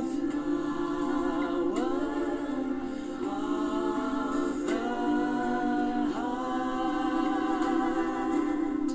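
Group of singers holding long notes in harmony, the voices moving to a new chord every second or two, with a male lead singing into a handheld microphone.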